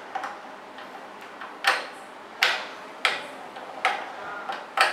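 Gas stove control knobs being turned, giving about five sharp clicks spaced under a second apart.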